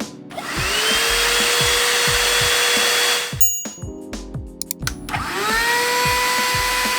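Cordless handheld car vacuum cleaners switched on one after another for a noise test. The first spins up with a rising whine and a loud rush of air, runs about three seconds and cuts off. About five seconds in, a second, higher-pitched one spins up and keeps running. Background music with a steady beat plays underneath.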